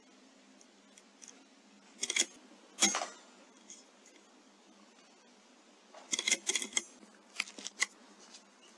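Sharp metallic clicks and knocks from a .22 air rifle being fired and cycled: a couple of clicks about two seconds in, the loudest knock just before three seconds in, then quick runs of clicks from about six to eight seconds in.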